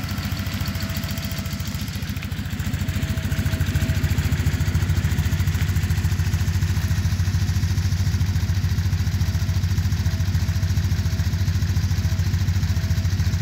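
1996 BMW R 1100 GS's air/oil-cooled boxer twin idling steadily with an even low beat. It grows a little louder about three seconds in and then holds level.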